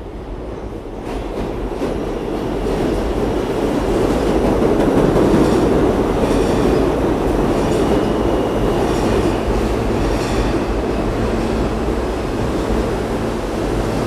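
New York City Subway R160 train pulling into the station. The rumble of wheels on rail grows louder over the first few seconds and then holds as the cars run past. Repeated clacks over rail joints and a thin wheel squeal come in through the middle.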